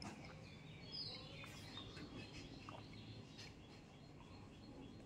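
Faint bird chirps over quiet room tone: a few short, high calls, one brief falling chirp about a second in.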